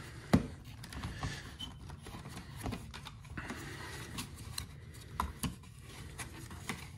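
Scattered plastic clicks and knocks from hands pushing and working a power-folding side mirror's glass against its retaining tabs. One sharp click about a third of a second in is the loudest.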